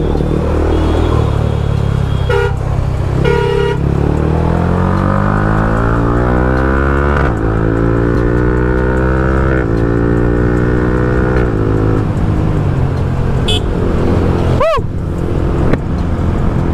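Motorcycle engine pulling up through the revs, with a gear change about seven seconds in, then holding speed. Two short horn beeps come early on.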